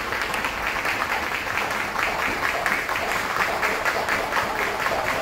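Several jump ropes slapping the floor as a group of children skip fast, a dense, uneven patter of quick overlapping clicks that keeps up steadily.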